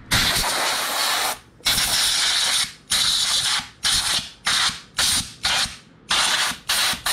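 Compressed-air blow gun on an air-compressor hose, fired in repeated hissing blasts at an RC truck's chassis to blow off cleaning alcohol. The first blast is about a second long, followed by a string of shorter blasts in quick succession.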